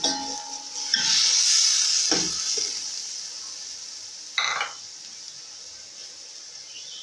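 Chicken and vegetables frying in hot oil in a steel pan: a surge of high sizzle about a second in that slowly dies down. A metal slotted spoon scrapes and knocks against the pan twice while stirring.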